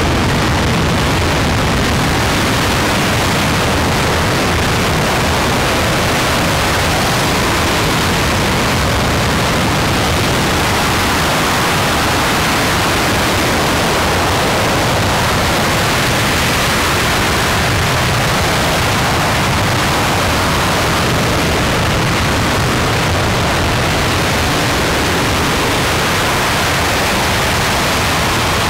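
RS-25 liquid-hydrogen rocket engine, a former space shuttle main engine, firing on a test stand: a loud, steady rushing roar that holds unbroken.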